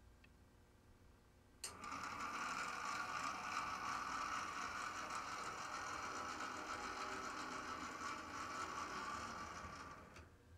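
HO-scale brass model of a Union Pacific C60AC diesel locomotive running along its track, its motor and gear drive giving a steady mechanical whir and gear noise. It starts abruptly with a click about one and a half seconds in, fades away shortly before the end, and a second click follows.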